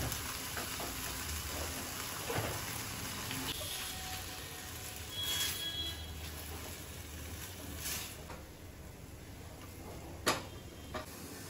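Soya chunks and ketchup sizzling in a frying pan while a silicone spatula stirs them, with a few light knocks of the spatula against the pan. The sharpest knock comes near the end.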